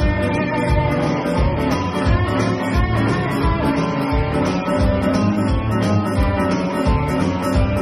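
A live band playing upbeat rock music, with electric guitar, bass and keyboard over a steady kick-drum beat.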